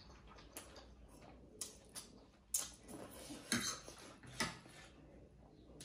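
Metal forks clinking and scraping against a ceramic serving plate while gathering ramen noodles: a handful of irregular sharp clicks, the loudest about three and a half seconds in.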